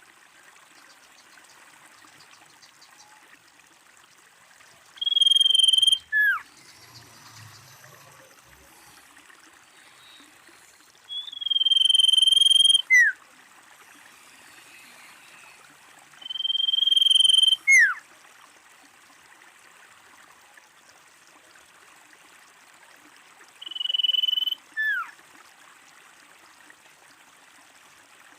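Common iora whistling four times, a few seconds apart. Each call is a long, steady, high whistle held for about a second, ending in a short, quick falling note.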